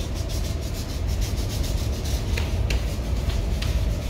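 Hand sanding of a van's steel body panel: quick, uneven rubbing strokes, over a low steady rumble.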